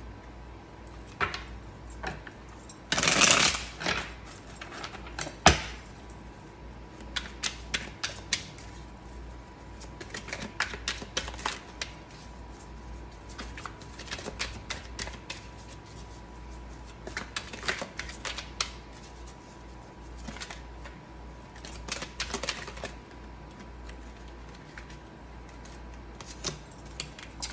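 A deck of cards shuffled by hand: clusters of crisp card clicks and flicks throughout, with a brief denser rush about three seconds in.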